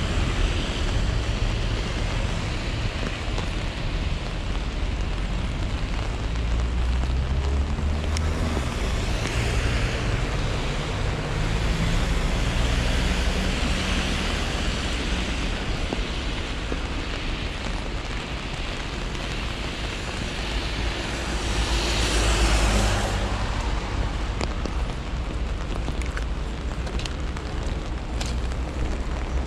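Street traffic on a wet road: cars swishing past with tyre hiss, over a steady low rumble. The loudest pass comes about three quarters of the way through.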